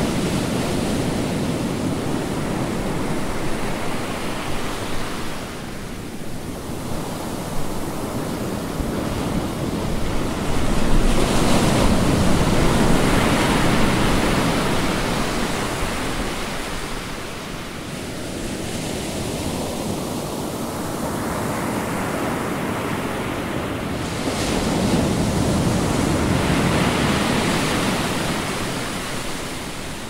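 Ocean waves breaking and washing up a beach, a steady surf that swells and ebbs, with the two biggest breaks about eleven seconds in and again near twenty-four seconds.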